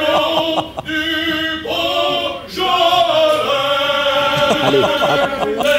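Singing with long held notes, in about three phrases with short breaks between them.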